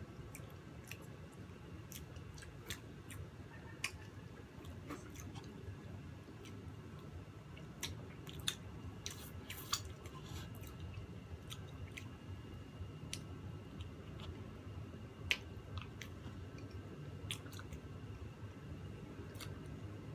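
Close-miked chewing of soft chiffon cake with cream, wet and steady, broken by scattered sharp clicks.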